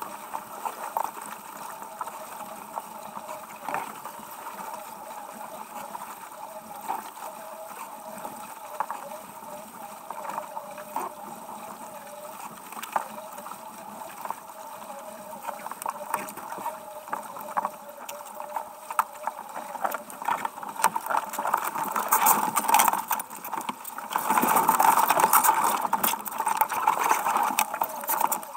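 Ridas 26 sailboat under way, heard from its deck: a steady rush of water and wind with a wavering whine and scattered clicks and knocks from the gear. About 24 seconds in it gets louder and busier as the boat tacks and the crew work the sheets.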